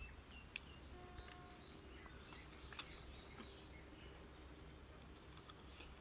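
Near silence: faint rural ambience with a few short, faint bird chirps and occasional soft clicks.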